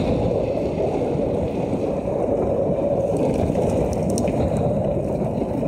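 Steady rush of wind on the microphone with mountain-bike tyres running on a wet road at high speed downhill.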